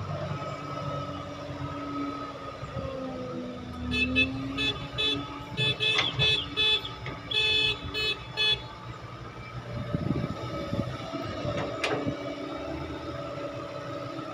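An engine running steadily while a vehicle horn sounds in a quick series of short toots, some bending in pitch, from about four seconds in for about four seconds. A few sharp knocks follow near the end.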